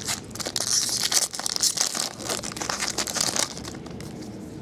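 Foil trading-card pack wrapper crinkling and tearing as it is opened, a dense crackle that dies down about three and a half seconds in.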